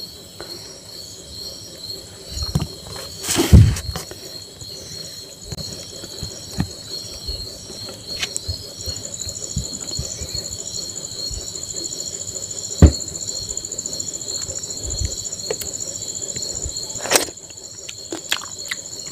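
Insects chirping steadily in a continuous high pulsing trill, with scattered clicks and knocks from hand eating off a steel plate and handling a steel bowl; one sharp knock near the middle.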